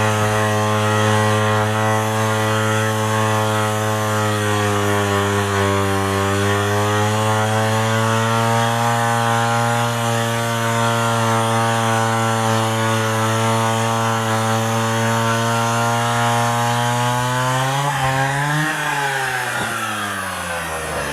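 Chainsaw engine running under load while cutting firewood logs, its note holding steady and sagging slightly about six seconds in. Near the end the engine revs up sharply, then falls away.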